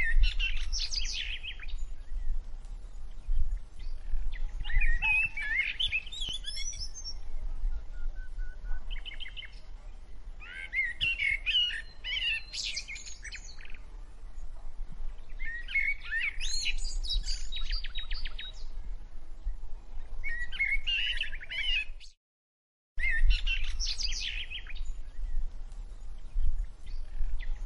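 Songbirds chirping and twittering in short phrases every few seconds, with a brief dropout of the sound about three-quarters of the way through.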